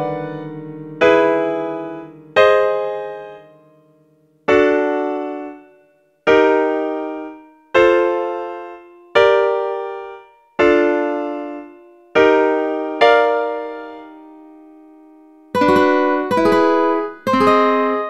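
Piano chords played back one at a time by a chord app, about ten of them, each struck once and left to fade before the next. Near the end, a quicker run of chords with several fast attacks each, the app's strummed ukulele chords.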